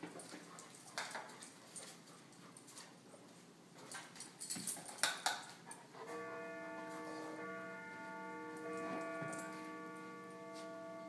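Plastic water bottle inside a Crinkit tube toy crackling and clicking as a golden retriever noses and mouths it, loudest around the middle; about halfway through, background music with long held notes comes in.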